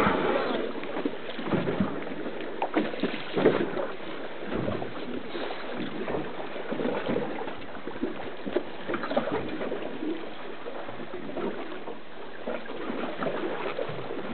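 Choppy sea water slapping and sloshing irregularly against the hull of a drifting boat, with wind on the microphone.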